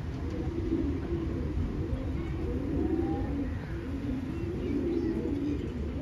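Homing pigeons cooing, low coos overlapping one another without a break.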